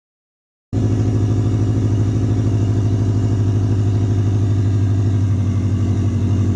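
Subaru Impreza's flat-four engine running at a steady idle, with an even, rapid pulsing and no revving. It cuts in abruptly less than a second in.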